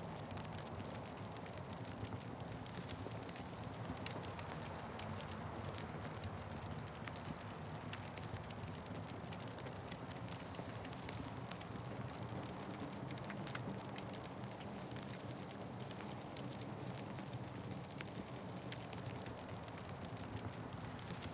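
Fire crackling steadily, with many small pops scattered over a continuous low rumble.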